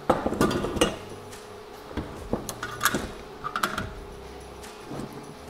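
Metal clinks and knocks as a cast rifle receiver is handled, turned over and set down on a wooden workbench: a quick cluster of knocks in the first second, then a few single knocks spread out, over a faint steady hum.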